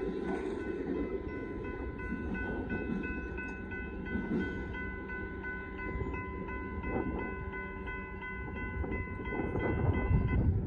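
Grade-crossing warning bell ringing steadily, a few strikes a second, over the low rumble of a passenger train moving away. The bell stops suddenly near the end.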